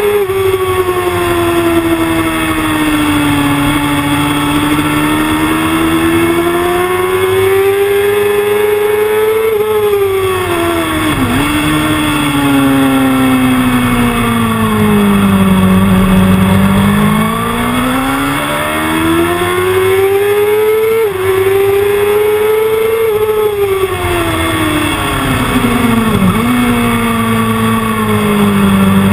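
Sport motorcycle engine heard from an onboard camera at track speed, its revs climbing and falling as the bike is ridden through the corners. The pitch drops sharply a few times at gear changes, over a steady rush of wind.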